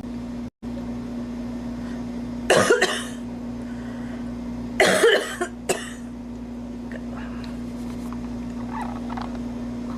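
A woman coughing dry coughs in two short fits of a few coughs each, about two and a half seconds in and again about five seconds in, over a steady low hum.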